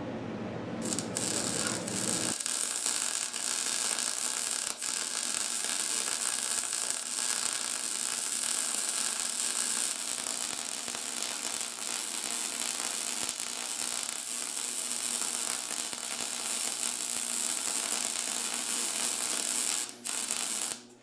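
Gas-shielded MIG welder arc running, a continuous crackling hiss as a weld bead is laid on a steel plate. It starts about a second in and cuts out just before the end, with a brief break near the end.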